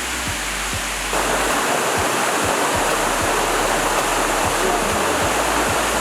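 Mountain stream water rushing over rocks in a steady roar, getting louder about a second in.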